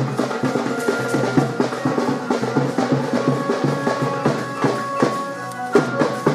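Music with drums and percussion, a quick steady beat with a few held tones over it.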